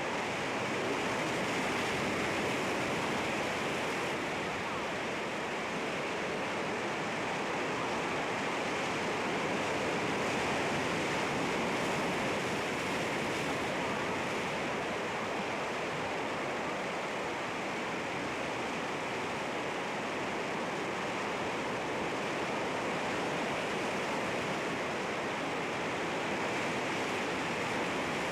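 Sea waves washing against rocks: a continuous rushing surf that swells and eases slightly in loudness, with no single sharp crash standing out.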